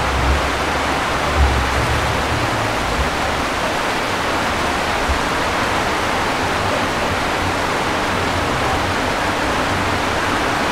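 Steady hiss of rain falling, with a few low bumps in the first few seconds.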